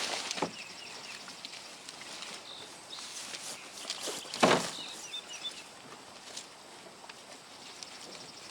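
Rustling and crunching of corn stalks being pulled and handled in the garden, in a few short bursts, the loudest about four and a half seconds in. Faint high chirps in the background.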